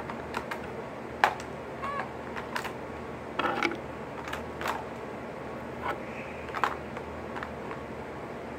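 Light clicks and taps of small makeup items (brushes, an eyelash curler, compacts) being picked up and put away, a dozen or so scattered irregularly through the few seconds.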